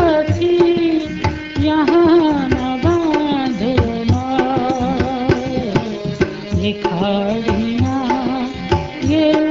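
Instrumental interlude of a ghazal: tabla playing a steady rhythm under a melodic instrument that slides between notes.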